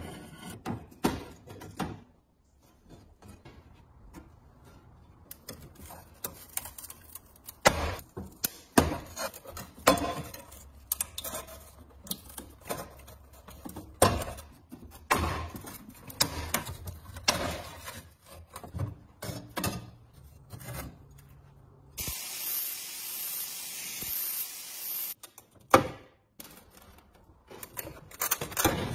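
Scraping, clinking and knocking of a metal tool against rusty iron parts of an antique stove as they are pried and worked loose, in a series of separate strokes and sharp knocks. Near the end a steady hiss lasts about three seconds.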